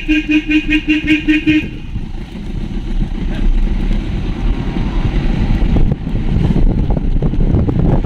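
A vehicle horn sounding in rapid short toots, about four a second, stopping a second and a half in; then the vehicle rumbling along a rough road, with scattered knocks and jolts.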